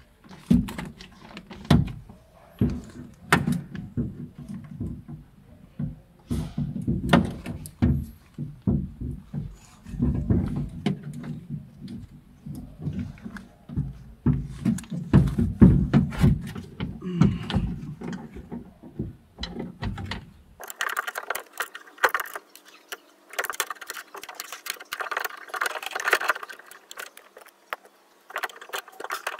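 Clicks, knocks and rattles of plastic and metal parts being handled while a car door lock actuator and its cable are fitted. About twenty seconds in, the sound changes abruptly to a denser, higher clatter with a faint steady hum underneath.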